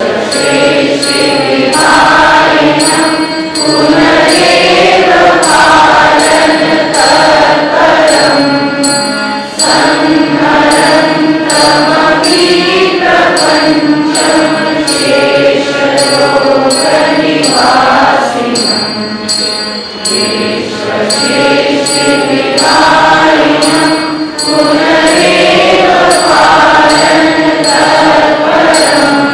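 Music: a group of voices singing a chant-like melody over a steady percussion beat.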